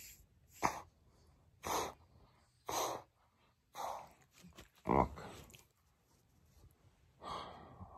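Border terrier sniffing and licking at a person's face: short breathy sniffs about one a second, with a pause before the last one near the end.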